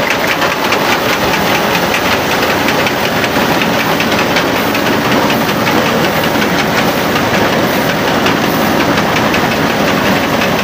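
Diesel engine of a Ghazi tractor running under load while its front-mounted chain reaper cuts standing wheat, with a fast, even rattle from the cutter.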